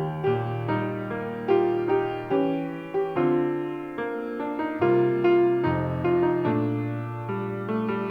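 Piano playing a slow, gentle piece: struck chords that fade after each stroke over held bass notes, a new chord every half second to a second.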